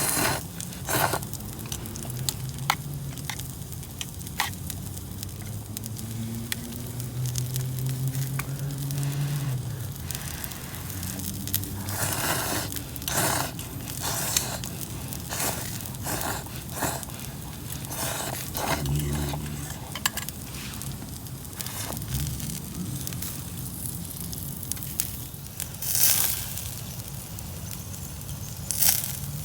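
Wood campfire crackling with frequent sharp pops, while someone eats close to the microphone; a few louder noisy eating sounds come near the middle and again near the end.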